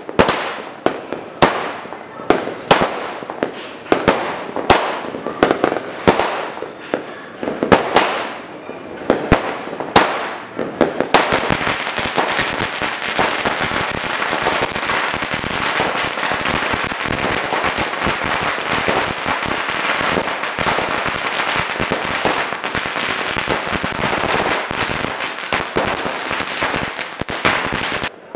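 Aerial fireworks going off overhead. For about the first eleven seconds there are separate sharp bangs, one every half second or so. Then the bangs give way to a dense, continuous crackle of rapid pops that runs almost to the end.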